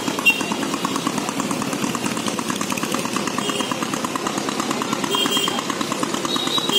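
A small engine running steadily with an even, fast chugging.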